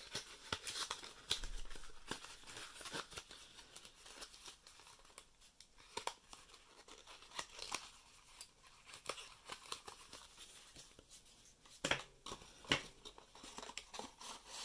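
Paper booklets and a cardboard box insert being handled and packed away: quiet rustling of paper and card with scattered small clicks and scrapes, and a couple of sharper clicks near the end.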